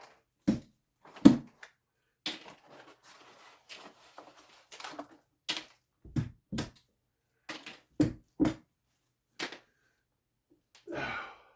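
Plastic tile spacer clips being snapped off from between wall tiles: a series of sharp cracks and clicks at irregular intervals, with some scraping and rustling in between.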